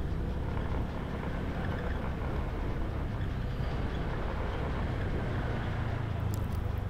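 Honda Air Blade scooter being ridden up a slope: steady engine and road noise throughout.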